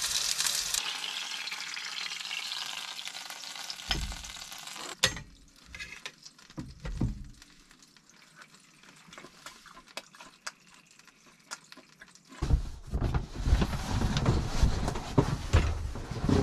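A steak sizzling in a frying pan on a portable gas stove, the hiss fading over the first few seconds, then a few knocks and clinks of utensils and the pan. After a quiet stretch, from about twelve seconds in, loud rustling and thumps as a foam sleeping mat is handled.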